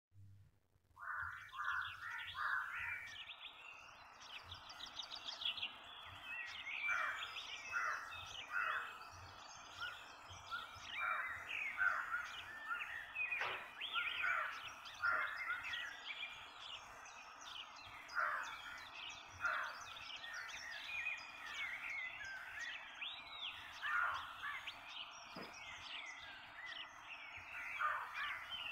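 Many birds chirping and calling in short, overlapping calls, beginning about a second in.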